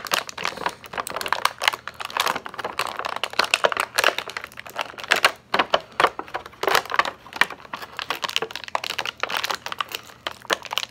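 Clear plastic blister tray crinkling and crackling in irregular bursts as hands work an action figure out of it.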